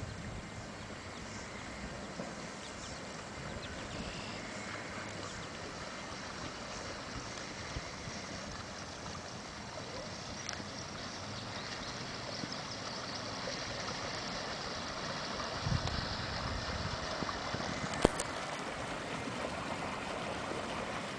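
Water rushing and gurgling off the bow and wake of a small electric boat as it comes close, slowly growing louder. A single sharp click near the end.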